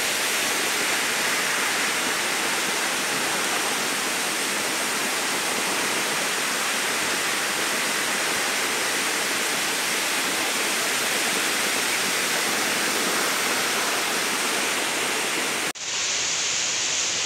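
Steady rushing of a waterfall's falling water. It cuts out abruptly for an instant near the end, then resumes with a brighter hiss.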